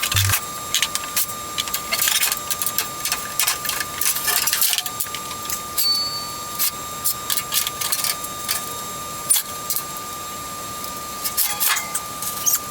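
Scattered clicks and light metallic taps, bunched in a few short flurries, over a steady high-pitched whine.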